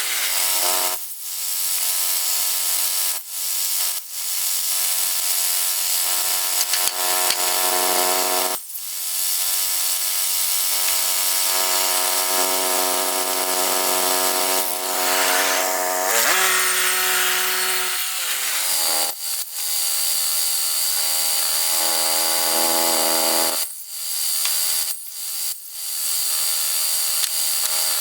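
Woodland Mills HM122 portable bandsaw mill running, its engine steady while the blade saws through a log. The engine pitch rises once past halfway and falls again shortly after, and the sound breaks off briefly several times.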